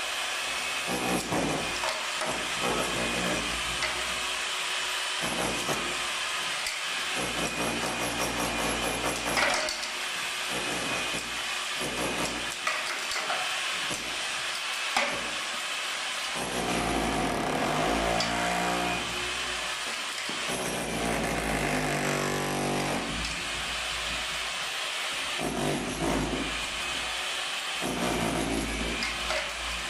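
Handheld electric rotary hammer chiselling a channel into a concrete-block wall: continuous hammering and grinding noise of the bit breaking out the block. A pitched whine that wavers up and down joins in for several seconds past the middle.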